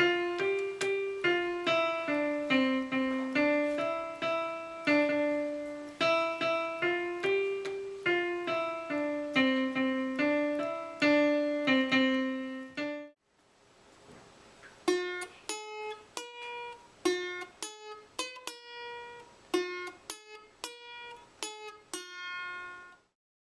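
Keyboard music with a piano sound: a melody of single notes, then after a short pause about 13 seconds in, a second passage of shorter, detached notes that stops shortly before the end.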